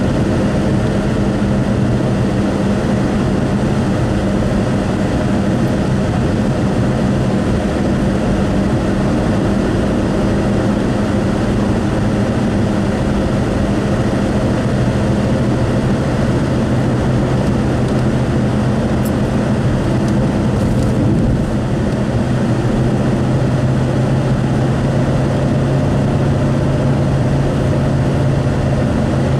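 Car interior noise while driving at highway speed: steady tyre and road rumble with a low engine drone. The main hum drops lower about halfway through.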